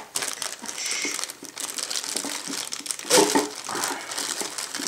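Clear plastic bag crinkling and rustling as hands open it and work a plastic model-kit part free inside it, loudest a little past three seconds in.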